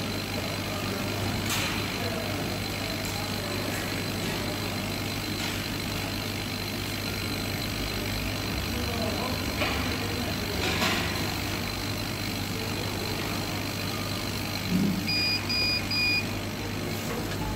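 CO2 laser cutter running while it cuts thick acrylic: a steady machine hum with a low drone underneath. Three short high beeps sound near the end.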